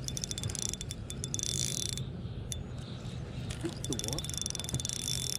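Fishing reel being cranked, its mechanism ticking rapidly and evenly, in two spells: for about the first two seconds and again near the end. A steady low hum runs underneath.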